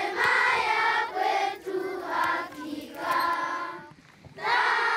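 A group of children singing together in held phrases, with a short break about four seconds in before the singing picks up again.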